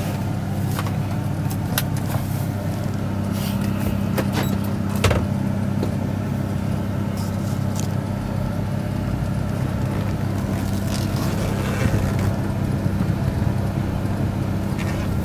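Chevy Avalanche pickup's V8 engine running at low speed, heard inside the cab as a steady low hum, with a few light clicks and knocks from the cab.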